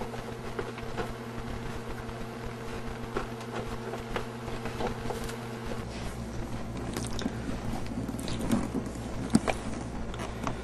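Steady low electrical hum under scattered light clicks and rustles, as the handheld camera is handled and turned around about six seconds in.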